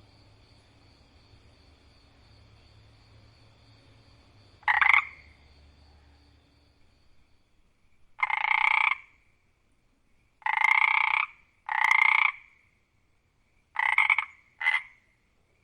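A single frog croaking loudly at night: six separate croaks, each under a second long, in an uneven series that starts about five seconds in, with the last two close together. Before the first croak there is only a faint, steady night background.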